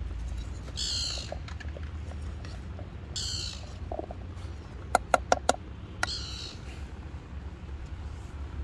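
A bird calling, three short high calls about two and a half seconds apart, over vegetables being stirred in a metal camping pot. About five seconds in, a utensil taps the pot four times in quick succession.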